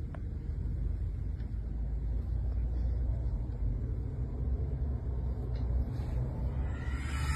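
Low, steady rumble inside a car's cabin, with a few faint clicks.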